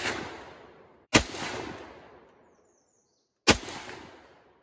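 Semi-automatic SKS rifle firing 7.62×39mm rounds: two sharp shots about two and a half seconds apart, each trailing off in a long echo over about a second. The fading echo of an earlier shot is heard at the start.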